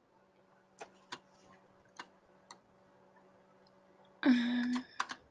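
A few faint, scattered computer clicks over a low steady hum. About four seconds in comes a short, flat-pitched vocal 'mmm'.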